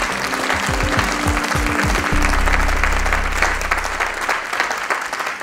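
Audience applauding over a short closing music sting. The music's low notes end about two seconds in on a held bass note that fades out a couple of seconds later, while the clapping goes on.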